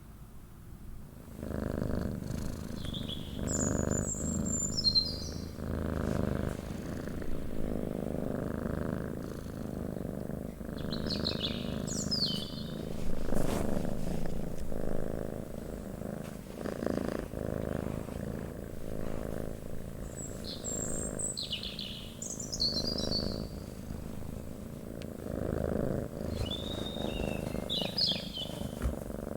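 Domestic cat purring steadily, the rumble swelling and easing with each breath, while small birds chirp in short bursts now and then.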